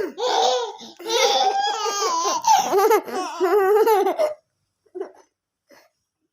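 A baby laughing in high-pitched, wavering bursts, which stop about four seconds in, followed by a couple of faint short sounds.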